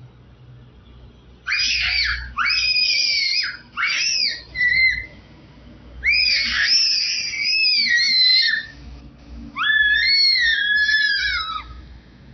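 A small child squealing and shrieking in three long high-pitched bouts, with pitch sliding up and down, between quieter gaps.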